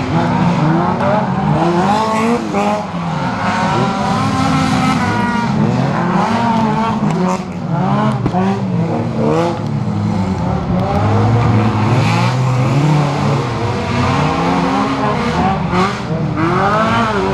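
Several race cars' engines revving hard on a dirt circuit, overlapping one another. Their pitch repeatedly climbs and then drops back as they go through the gears and brake for corners, with a steep rising sweep near the end.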